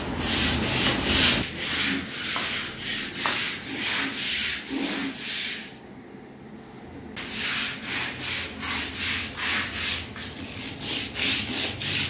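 Handheld scrub brush scrubbing a stone countertop in quick back-and-forth strokes, about two a second, with a short break about halfway through.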